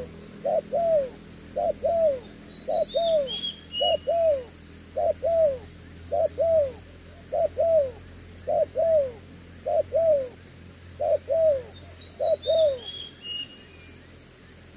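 Spotted dove cooing in a steady series of paired notes, each note falling in pitch, about one pair every second and a bit. The series stops near the end.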